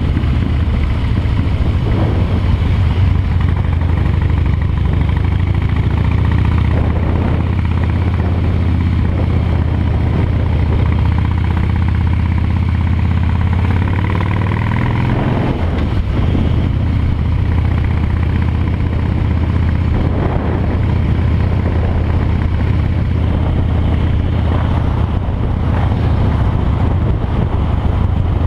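Harley-Davidson V-twin motorcycle engine running steadily while riding along a road, its low exhaust note loud throughout, with a brief dip in the engine sound about halfway through.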